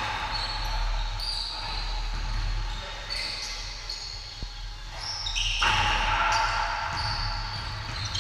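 Full-court pickup basketball on a hardwood gym floor: the ball bouncing, short high squeaks of sneakers, and players calling out, echoing in the large hall. The calls are loudest from about halfway through.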